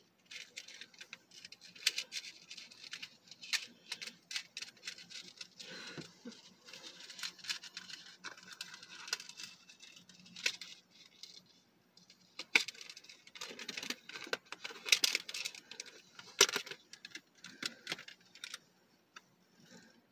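Small metal chain and key pendant clinking and jingling in the hands, with irregular little clicks and taps as a stuck rubber part is worked loose from it. The clinks come in uneven clusters, loudest about three-quarters of the way through.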